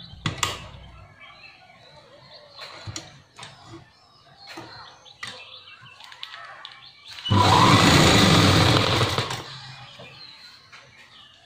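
Sewing machine stitching a folded fabric strap: light clicks and fabric rustle at first, then the machine runs fast for about two seconds past the middle before slowing to a stop.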